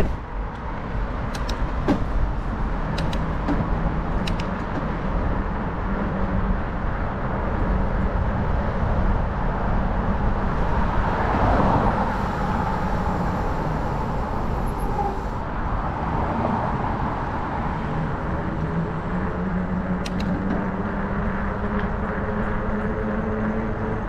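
Steady wind rush on the microphone and the hum of 5-inch fat bike tyres rolling on pavement as the bike speeds up, with a car passing close by about eleven seconds in.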